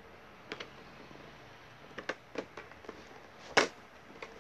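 Headphone box being handled and opened: scattered light clicks and rustles of packaging, with one sharper snap about three and a half seconds in.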